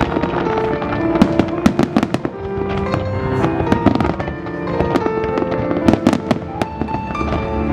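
Fireworks display: many bangs and crackles of bursting shells in quick, irregular succession, over loud music with held notes.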